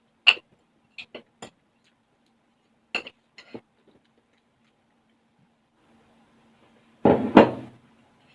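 Eating utensils clinking against a dish several times in quick, separate taps. Near the end comes a louder, rougher sound lasting about a second.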